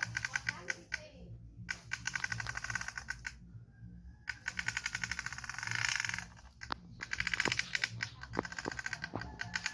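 Toy truck being pulled along, its wheels rattling in fast runs of clicks that come in spurts with short pauses between.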